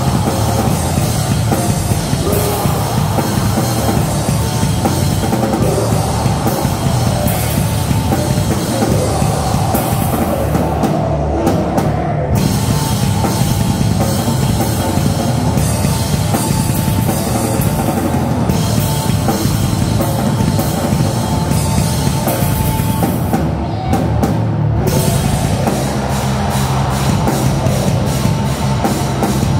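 A live rock band playing loud, heavy music on drum kit and electric guitars, heard close to the drums and guitar amp.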